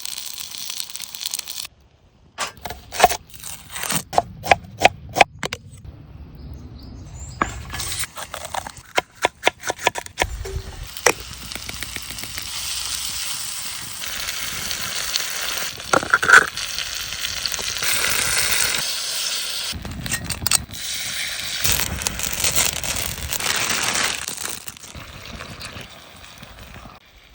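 Camp cooking sounds: a string of sharp clicks and taps, then from about twelve seconds in a steady crackling sizzle of food frying in a pan.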